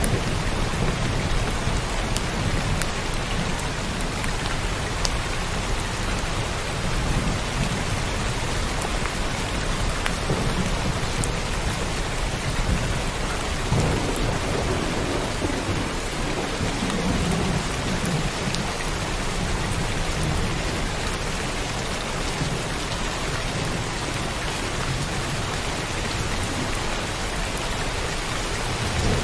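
Heavy rain pouring steadily, a dense even hiss with fine drop ticks. A low rolling rumble of thunder swells about halfway through.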